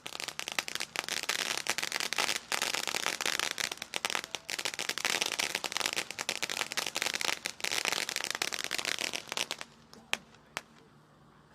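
Consumer firework fountains going off, a dense rapid crackling for about ten seconds that then dies away, with two last sharp pops near the end.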